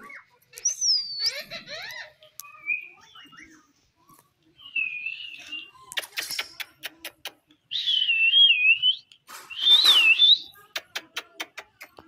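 Rose-ringed parakeet giving a string of whistled, warbling calls that glide up and down in pitch. Two quick runs of sharp clicks come about halfway through and near the end.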